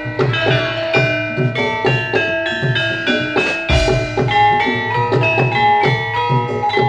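Javanese gamelan music for a horse dance: ringing struck metal keys and gongs play quick runs of notes over steady, repeated hand-drum strokes.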